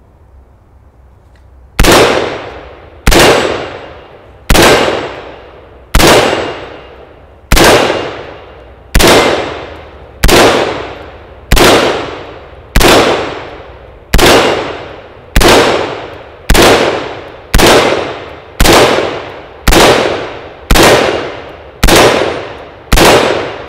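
Early Colt SP1 semi-automatic rifle in 5.56 mm firing single shots at a steady pace, about nineteen shots, each followed by a long echo. The shots come a little over a second apart at first and quicken to about one a second near the end.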